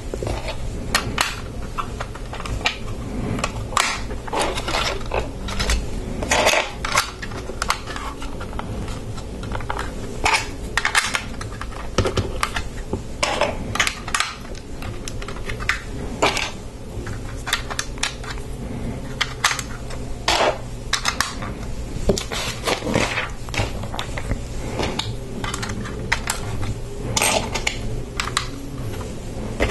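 Plastic Lego pieces clicking and clattering as they are handled and pressed onto a build: irregular sharp clicks, a few a second, over a faint steady low hum.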